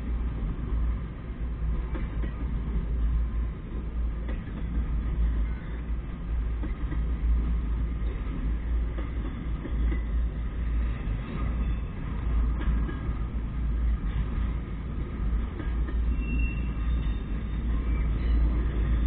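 Double-stack intermodal freight train's well cars rolling slowly past, a steady low rumble of steel wheels on the rails.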